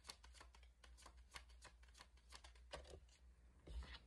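A deck of oracle cards being shuffled by hand: faint, quick flicks and taps of cards, several a second and irregular, with a brief sliding swish near the end.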